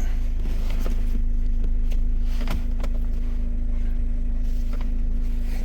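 Steady low rumble and constant hum of a motor vehicle, with a few faint clicks.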